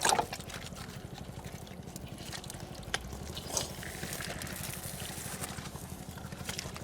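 Shallow water splashing and dripping, with a few short splashes over a steady low hum.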